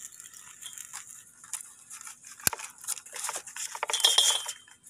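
Metal cutting pliers clicking and clinking while cutting and handling thin white plastic tubing at a submersible pump, with one sharp click about two and a half seconds in and some rustling.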